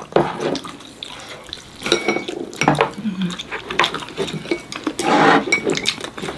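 Chopsticks and a spoon clinking and scraping against bowls while eating: a run of sharp, irregular clinks, some with a brief ring.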